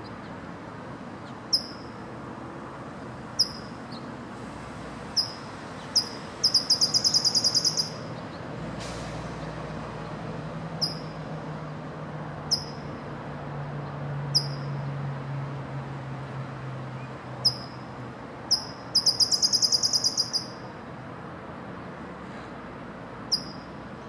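California towhee calling: sharp, high chip notes every second or two, twice breaking into a quick run of the same notes, once about a quarter of the way in and again past the three-quarter mark.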